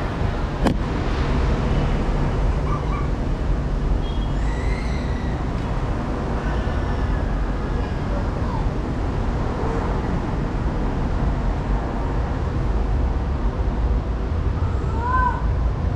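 Steady low outdoor rumble, with a sharp click about half a second in and a few faint short calls, one rising and falling near the end.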